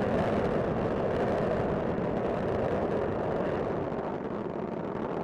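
Space Shuttle's solid rocket boosters and main engines firing during ascent: a steady, dense rumbling noise without a break.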